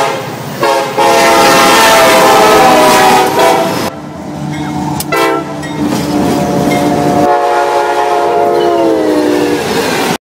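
Locomotive air horns sounding their chord in a string of short spliced clips that cut off abruptly, with a loud rumble of the passing train under the horn in the second clip; the last blast drops in pitch as the locomotive goes by.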